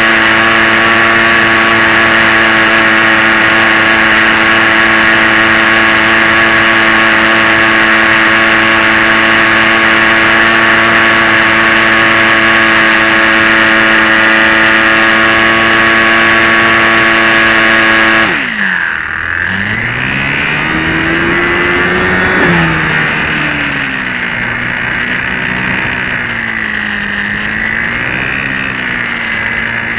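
Electric motor and propeller of a HobbyZone Champ RC plane, heard from on board. A steady high whine at full throttle, cut back suddenly about eighteen seconds in, after which it runs lower with its pitch rising and falling as the throttle changes.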